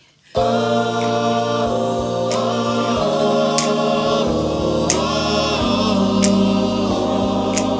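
Gospel music starts suddenly a third of a second in: held chords over a steady bass, with a crisp percussive hit about every second and a quarter.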